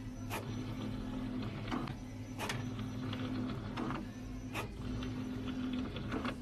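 A small machine running in a repeating cycle: a low hum interrupted by a sharp click about every two seconds.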